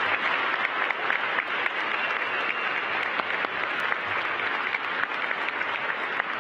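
Applause from a crowd: many people clapping steadily.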